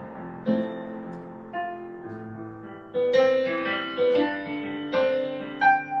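Solo piano played on a digital keyboard: struck chords and notes ring and fade, a new one about once a second, softer at first and growing louder from about halfway.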